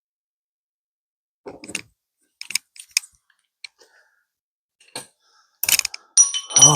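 Scattered sharp clicks and clinks of hand tools and a socket working at seized, rusty bracket bolts. Just before the end a louder steady sound with a low pitch begins.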